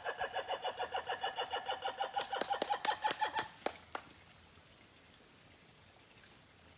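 An animal's rapid series of short pitched calls, about seven a second, growing louder and faster before breaking off about four seconds in, with a few sharp clicks at the end.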